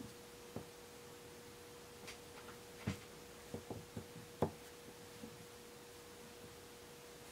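Small plastic My Little Pony figures being set down and shuffled on a tabletop: a scattered series of light taps and knocks, the loudest about three and four and a half seconds in, over a faint steady hum.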